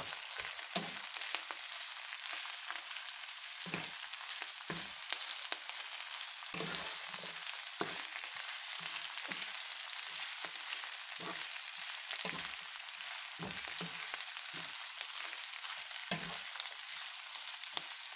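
Chinese cabbage, carrots, sausage and meatballs sizzling in a stone-coated frying pan as a spatula stirs and turns them, with frequent short knocks and scrapes of the spatula against the pan over a steady hiss.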